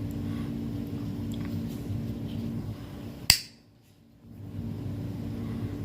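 Steady low room hum with a faint constant tone, broken about three seconds in by a single sharp click, then about a second of dead silence before the hum returns.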